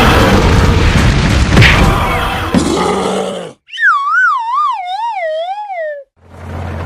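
Dense, noisy edited sound effects for about three and a half seconds, then a falling, wavering whistle-like tone lasting about two seconds, like a cartoon 'wah-wah' slide. After a short gap a steady low hum starts near the end.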